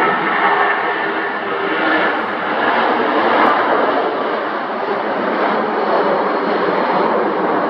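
Jet airliner engines running, a loud steady rushing noise.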